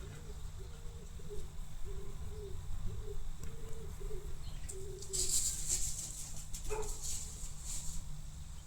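Dogs playing: a run of short, evenly spaced low calls, then a burst of scuffling and rustling about five seconds in.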